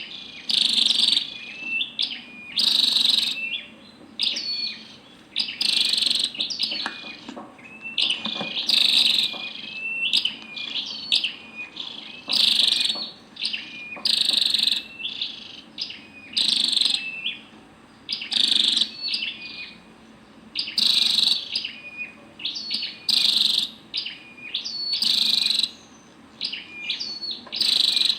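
Female flowerpecker calling: a short burst of high, sharp chirps, repeated in the same pattern about every two seconds.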